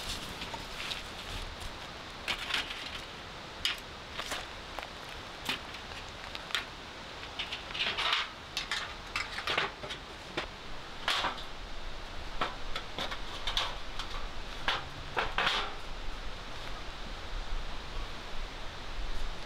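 Metal clinking and clattering as a folding wire fire stand is handled and assembled: thin wire frame, wire grill net and a curved metal fire plate knocking together, with a canvas bag rustling. Irregular sharp clicks throughout, coming thicker and louder in the second half.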